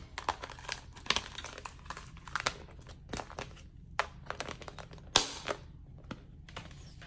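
Clear plastic envelope pouches and a plastic mailer bag crinkling as they are handled, with irregular light clicks and one sharper snap a little past halfway.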